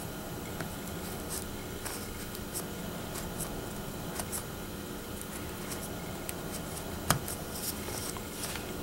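Fabric being tucked with a needle-like tool into the scored grooves of a ball ornament: faint scratching and rubbing with a few light clicks, the sharpest about seven seconds in.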